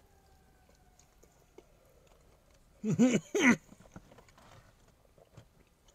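A man chewing a mouthful of fried hot chicken, with faint wet mouth clicks. About three seconds in come two short hummed vocal sounds in a row, each rising then falling in pitch.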